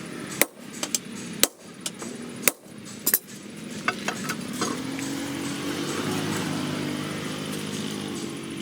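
Hammer blows on steel, about one a second for the first three seconds. From about four seconds in, a motor runs steadily.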